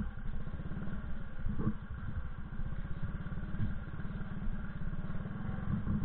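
Small motorcycle engine running steadily at low speed, with an even, fast firing beat.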